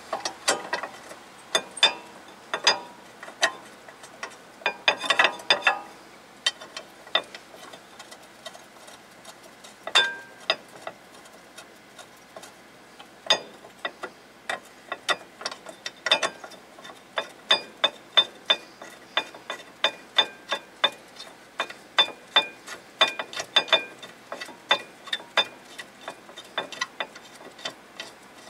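Light metallic clicks and ticks from a brake caliper bracket and its pad clips being handled against the rotor. A dense cluster comes about five seconds in, and a fairly even run of about two to three clicks a second fills the second half.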